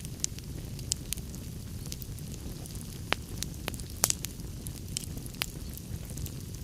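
Wood fire crackling: irregular sharp pops and snaps over a steady low rumble, with the loudest pops about four seconds in.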